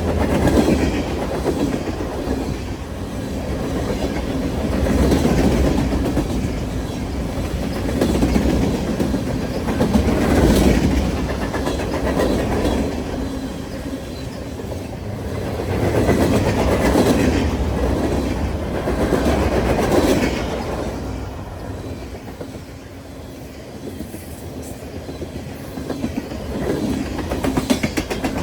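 Freight train cars rolling past, their steel wheels clattering over rail joints. The sound swells and fades every few seconds and eases off for a few seconds near the end.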